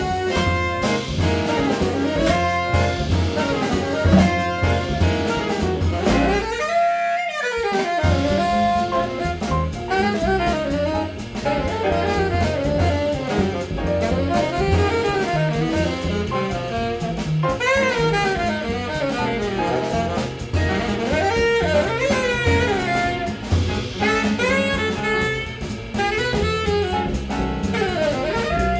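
Live small-group jazz: saxophone lines over drum kit, double bass and piano. The bass and drums drop out briefly about six seconds in, then the band plays on.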